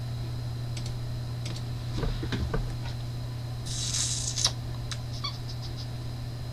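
Scattered computer mouse clicks and soft desk-handling knocks, with a short rustle about four seconds in, over a steady low hum.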